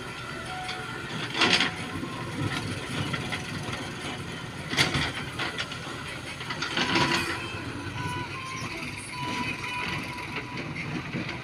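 JCB backhoe loader's diesel engine running steadily while it works among cut stone blocks, with three loud knocks a few seconds apart.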